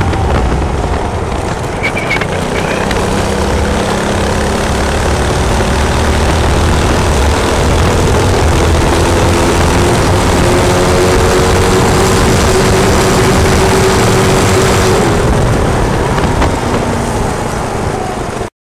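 Modified Honda GX200 single-cylinder engine on a go-kart with a torque-converter drive, heard from onboard while running at speed. Its pitch climbs slowly, then eases off near the end before the sound cuts off suddenly.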